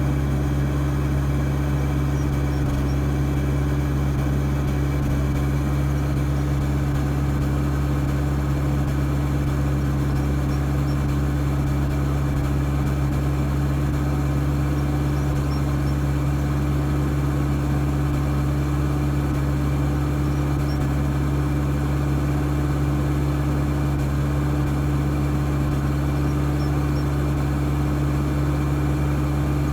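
Mitsubishi 4D56 four-cylinder diesel engine idling steadily, an idle the owner calls rough.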